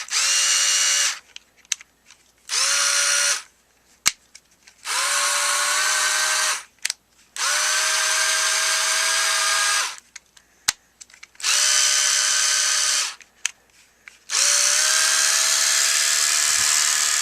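Ryobi HP53L 4V lithium cordless screwdriver's motor and gearbox running unloaded in six short bursts. Each burst spins up with a quick rising whine and then holds steady, with small clicks between the runs. The gears are freshly greased, and the tool sounds a little better, but there is still a noise that the owner thinks is in the motor.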